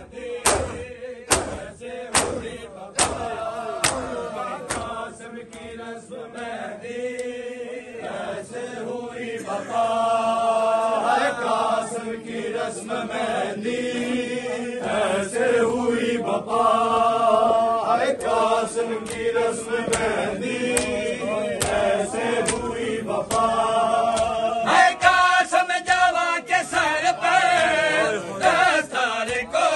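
Men doing matam, slapping their chests in unison with sharp strikes about once a second for the first few seconds. The crowd then chants a noha, a Shia lament, together, with fainter beats beneath the voices.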